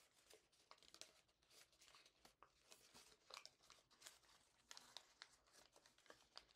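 Faint, irregular crinkling and crackling of origami paper being pinched and folded by hand while a complex open-sink fold is worked.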